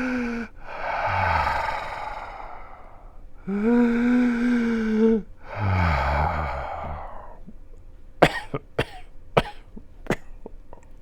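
A man taking deep, laboured breaths: twice his voice sounds in a held groan of about a second and a half, each followed by a longer rough, rasping breath. In the last few seconds come several sharp clicks.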